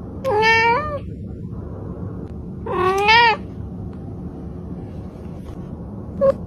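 Cat meowing: two long meows with a wavering pitch, about two and a half seconds apart, then a brief short call near the end.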